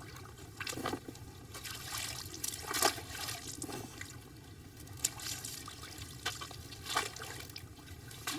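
Water trickling and sloshing, with scattered small clicks and splashes.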